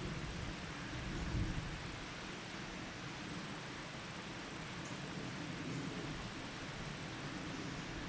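Outdoor summer ambience: a steady hiss with a thin, high, steady tone, and the low buzzing of a bumblebee working a thistle flower. A low rumble fades out in the first second and a half.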